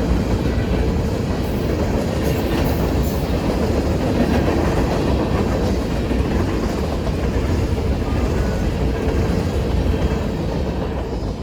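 Freight train's cars rolling past at a railroad crossing, a steady loud rumble with clickety-clack of wheels on rail joints.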